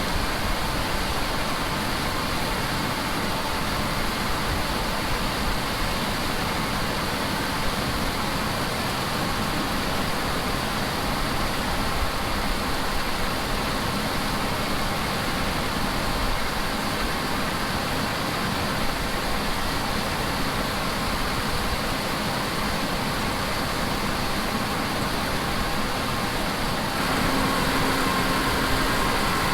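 Steady engine and machinery running noise with a faint hum; it gets a little louder and a low hum comes in near the end.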